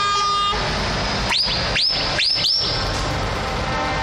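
Trucks driving past with engines running. A horn blast cuts off about half a second in, then four quick shrill whistles follow, each rising sharply to a high held note.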